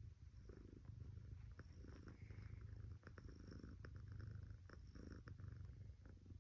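Domestic cat purring: a faint low rumble that swells and fades in waves of about a second, with scattered faint ticks over it.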